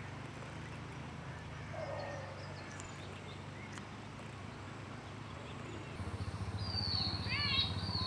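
Long-tailed broadbill calling: a quick series of high, thin, downward-slurred notes in the last two seconds. A steady low hum lies under it and grows louder about six seconds in.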